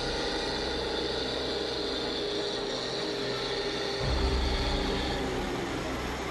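Heavy log truck's engine running steadily, with a deeper rumble swelling about four seconds in.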